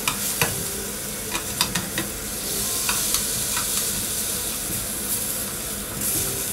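Onion halves and carrot pieces sizzling as they brown in beef dripping in a stainless steel frying pan, with metal tongs clicking against the pan as they are turned, mostly in the first half.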